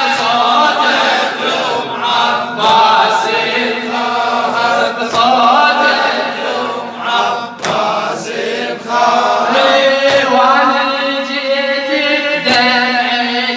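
Men's voices chanting a Shia mourning chant (latmiya) over a steady low hum, with a sharp beat about every two and a half seconds.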